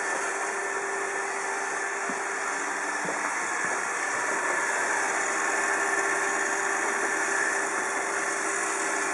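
iRobot Roomba 780 robot vacuum running: a steady whirring hum from its vacuum motor and brushes, with a few faint clicks around two to four seconds in.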